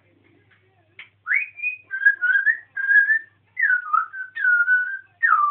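African grey parrot whistling: a string of clear whistled notes, some sliding up or down in pitch, starting with a rising whistle about a second in and ending with a falling one.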